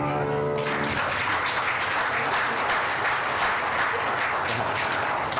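The song's last held chord ends about a second in as a church congregation applauds, and the clapping carries on steadily.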